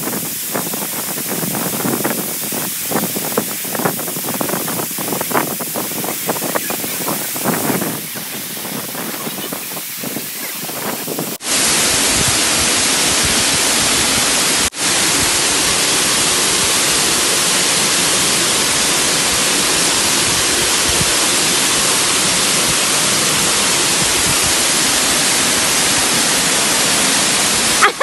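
Water of a tall waterfall rushing. For the first eleven seconds it is quieter and rougher, with crackly buffeting, then an abrupt cut to a louder, even, steady rush.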